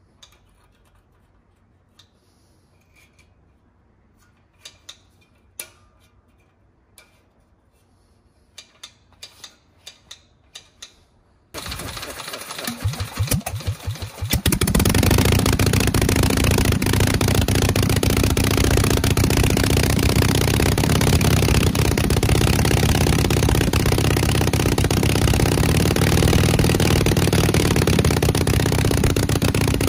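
A few faint clicks as the throttle wire is fitted. About eleven seconds in, the 1928 Harley-Davidson JH two-cam F-head V-twin racing engine is spun over for about three seconds, then catches and runs loudly and steadily.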